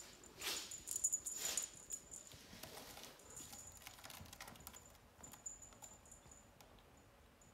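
Kittens scuffling and pouncing on a fleece blanket: soft rustling and light clicks of paws and claws, busiest in the first two seconds and then dying down, with a faint high ringing tone coming and going.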